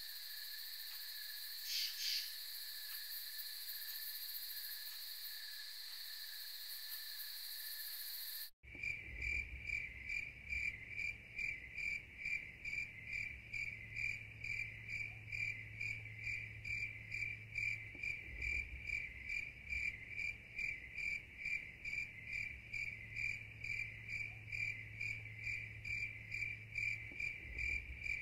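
Night insects: first a steady high-pitched insect drone with two short louder calls near the start, then, after a sudden cut about a third of the way in, insects chirping in a steady, even pulse of about two chirps a second.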